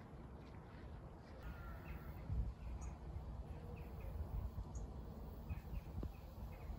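Crows calling outdoors: several short caws scattered over a few seconds, over a low rumble of wind on the microphone.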